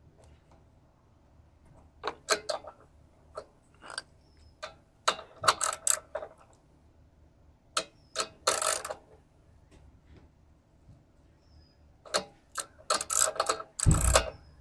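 Bursts of clicking and clattering from hand tools and small metal parts being handled at a lawnmower engine, with a dull knock near the end.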